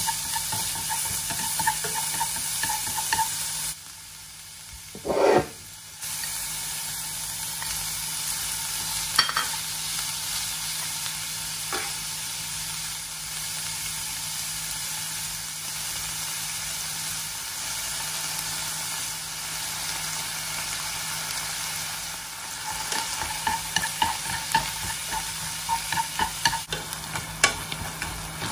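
Diced onion and ground beef sizzling in an oiled frying pan, with chopsticks clicking and scraping against the pan as the food is stirred. About four seconds in there is a short quieter break that holds one brief, louder sound.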